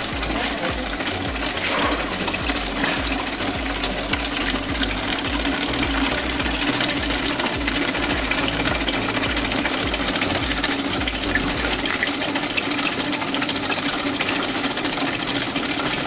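Water-driven turbine spinning a washing-machine motor used as a generator: a steady mechanical whir and hum over the hiss and splash of water falling into a plastic bottle.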